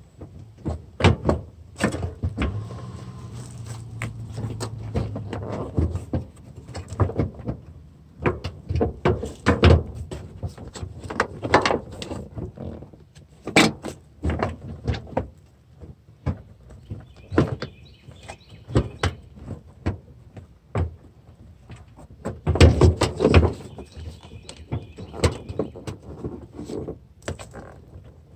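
Irregular knocks, clunks and rattles of hard parts being handled and pushed into place, as a car headlight assembly is test-fitted. Faint bird chirps join in the second half.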